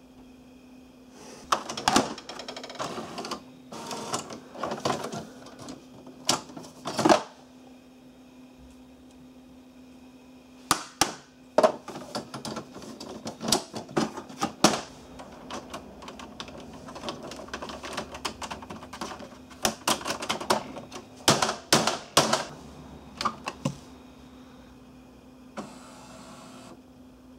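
HP Photosmart C5280 inkjet printer's mechanism clicking and clattering in irregular bursts as its print carriage and cartridges are moved and handled, over a steady low hum.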